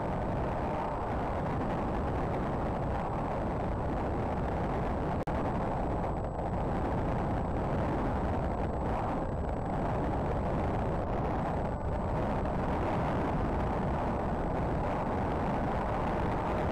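Steady wind rush over the onboard camera of a Z-51 Predator RC plane in flight, with a faint hum from its electric motor underneath. There is a brief dropout about five seconds in.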